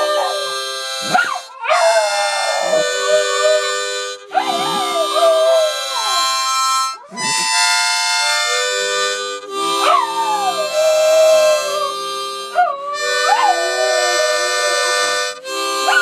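A Doberman howling along to a harmonica. The harmonica plays held chords in short phrases, and the dog's howls break in repeatedly, each leaping high and then sliding down in pitch.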